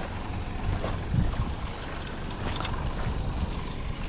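Chevrolet Malibu running on a test drive after its rebuild: a steady low engine and road rumble, with a few light clicks about two and a half seconds in.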